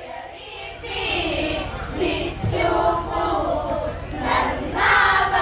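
A group of women singing the chorus response of an Onamkali song together, their voices overlapping unevenly.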